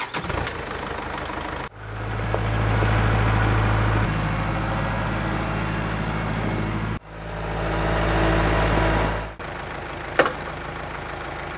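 An engine running steadily at idle, its tone jumping abruptly a few times, with a sharp click near the end.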